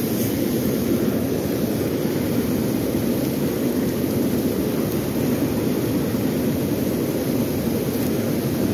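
Steady rush of a river in high flow, whitewater pouring over a low rock weir close by.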